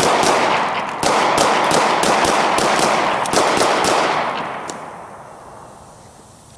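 A handgun fired in a rapid string, about a dozen shots in some four seconds, over a dense wash of echo that dies away over the last two seconds.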